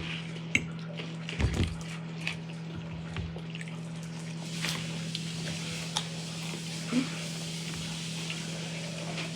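Dishes and utensils clinking and knocking now and then over a steady low hum.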